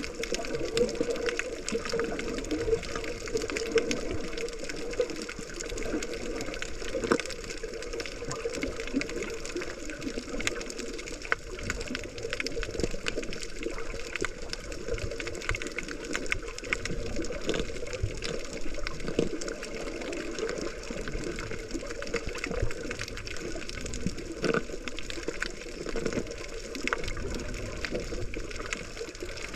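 Water sloshing and rushing against a GoPro camera during snorkeling, an irregular watery noise with many small scattered clicks and crackles.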